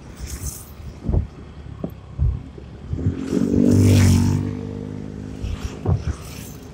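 Wind buffeting the microphone of a moving motor scooter, in irregular gusts. About three seconds in, a vehicle engine swells to a peak and fades again as it passes.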